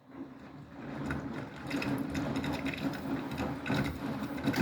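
Beko WTK104121W washing machine's motor starting up and turning the drum, building up over the first second or so and then running steadily with a busy mechanical whirr, as the machine begins balancing the load ahead of its spin.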